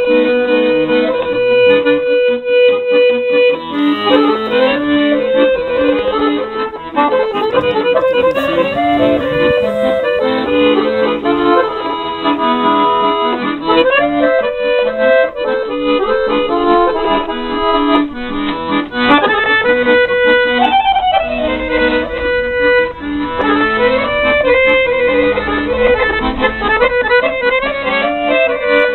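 Instrumental background music: a melody of held and moving notes over a steady accompaniment.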